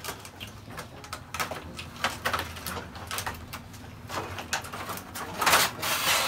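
Plastic toy vehicles and a plastic-windowed cardboard toy box being handled: a run of small clicks and knocks, with a louder rustle of the packaging about five and a half seconds in.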